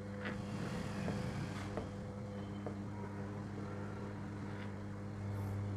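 Steady electrical mains hum with a few faint clicks, growing slightly louder about five seconds in.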